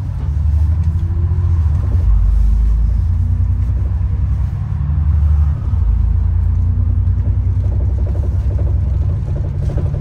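Bus engine and road rumble heard from on board: a loud, deep rumble whose engine note rises slowly several times as the bus pulls through its gears.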